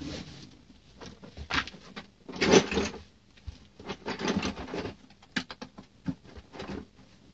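Someone rummaging through tools while looking for a socket: irregular rustling clatters, the loudest about two and a half seconds in, and a run of sharp clicks and knocks in the second half.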